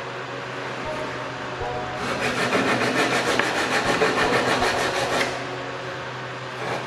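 Hand sanding a blackwood rail with a sanding block: fast back-and-forth scrubbing strokes of sandpaper on the wood. The strokes start about two seconds in and stop about five seconds in.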